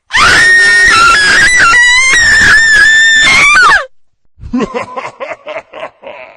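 Horror sound effect of a shrill scream, held for almost four seconds at a high wavering pitch that jumps between notes and falls away as it cuts off. After a short pause comes a run of quick short bursts, like a snickering laugh.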